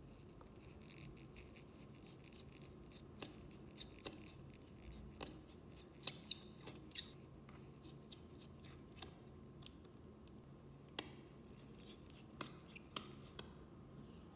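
Scattered small sharp clicks and light scrapes, a dozen or so at uneven intervals, from small repair tools working on an opened iPhone 7 Plus, over a faint steady hum.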